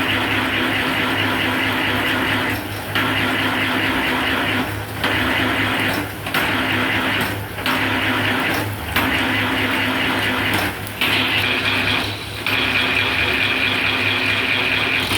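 Bamboo satay-skewer rounding machine (tulup type) running steadily, shaving bamboo strips, its sound dropping briefly every second or two.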